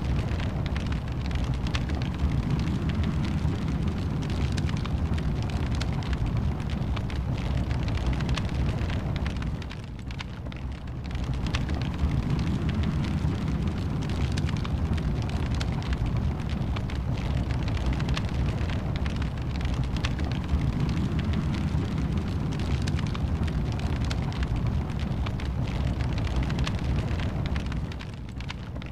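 Wood fire burning in a fireplace: a steady low rumble of flames with many small crackles and pops. It dips briefly about ten seconds in and again near the end.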